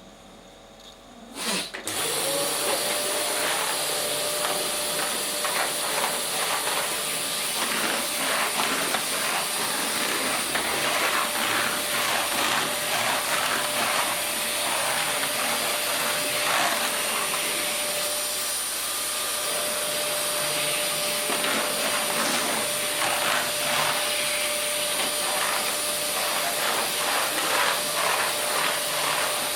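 Vacuum cleaner switched on about two seconds in, its motor spinning up with a rising whine and then running steadily at a constant pitch.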